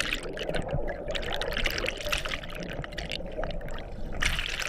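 River water splashing and trickling in uneven spurts, easing off for a moment about three seconds in and then picking up again.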